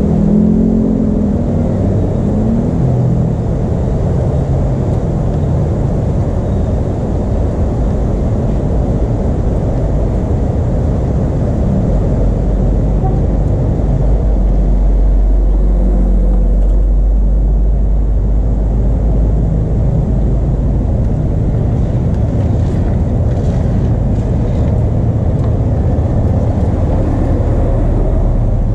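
A small pickup truck drives past close by on a wet lane, its engine and tyres loudest about halfway through, over a steady low rumble. Motorcycle engines approach near the end.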